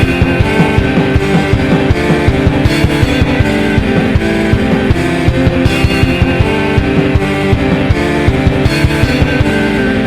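Instrumental music with a fast, steady beat and layered repeating notes.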